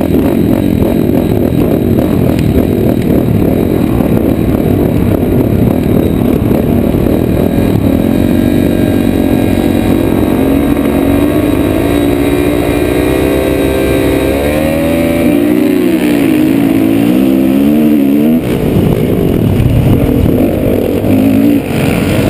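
Several motocross dirt bikes running on the start line, engines revving with a rising, wavering pitch. About eighteen seconds in, the sound changes as the bikes launch off the line and run hard up the track.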